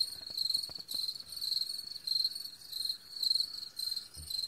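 A chorus of crickets chirping: a steady high trill that pulses rapidly and swells and fades about once a second.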